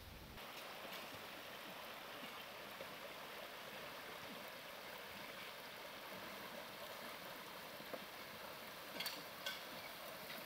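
Shallow stream running over rocks, a steady rush of water that cuts in just after the start. A few short knocks near the end.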